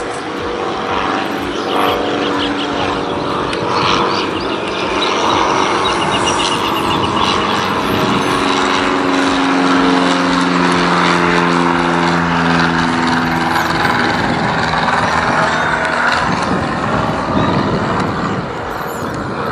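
Cessna 150L light aircraft flying past overhead, its four-cylinder Continental O-200 engine and propeller droning steadily. The drone is loudest around the middle and fades away about three-quarters through as the plane moves off.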